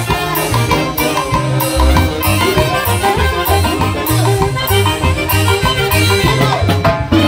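Live Andean orquesta playing a huayno: saxophones and trumpets carry the melody over a drum kit keeping a steady beat with regular cymbal strokes.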